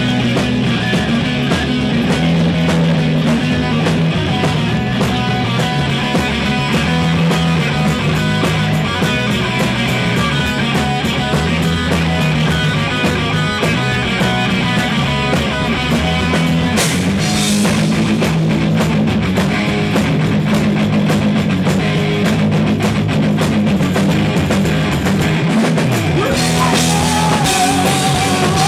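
A rock band playing live: electric guitars, bass guitar and a drum kit keeping a steady beat, with a voice singing near the end.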